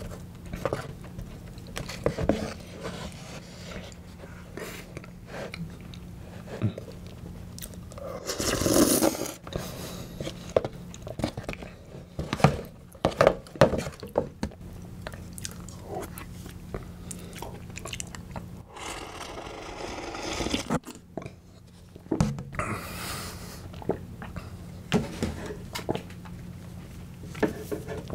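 Close-miked eating: a wooden spoon scraping and clicking in a plastic tub of Oreo ice cake softened with milk, with chewing and wet mouth sounds. Scattered short clicks, with two longer hissy stretches about nine and twenty seconds in.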